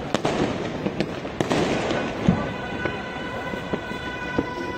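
Fireworks and firecrackers going off over a city: a continuous crackle with many scattered sharp bangs. A steady high tone joins about halfway through.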